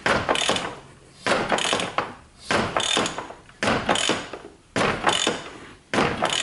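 Ratchet wrench clicking in repeated strokes, about one a second, as the engine is turned over by hand to bring a cylinder up to top dead center.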